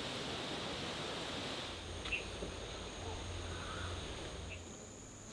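Outdoor rural ambience: steady background noise with a few short, faint bird calls. A thin, steady high-pitched drone comes in about two seconds in.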